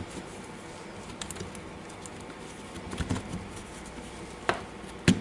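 Sharp clicks and taps of drill parts being handled and fitted into the plastic housing, two louder clicks near the end.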